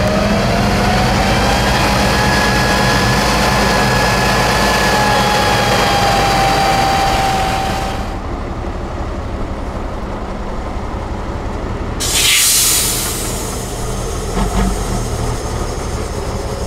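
Big 8x8 trial truck's engine running under load on a steep sand climb, with a whine that rises and then holds steady. After a sudden change to a quieter engine sound, there is a short, loud hiss of compressed air about twelve seconds in, followed by a couple of thumps.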